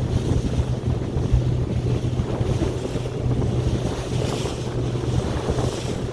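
Small boat under way with its motor running at a steady low hum, water rushing past the hull and wind buffeting the microphone.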